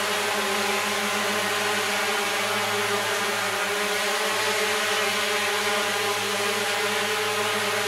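Small six-armed hexacopter drone hovering, its motors and propellers running steadily at an even, unchanging pitch.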